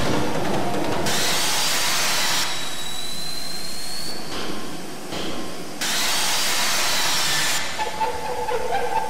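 Electronic noise soundtrack: loud hissing noise that cuts in and out abruptly every second or two, with a thin high tone gliding slowly upward about three seconds in and a few short pitched tones near the end.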